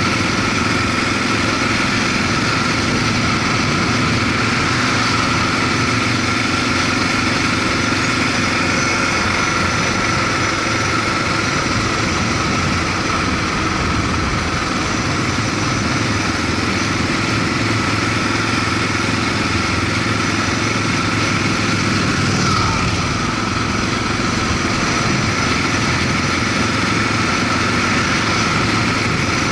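Suzuki DR650's single-cylinder engine running steadily while the motorcycle cruises down a street, mixed with steady wind rush over the microphone.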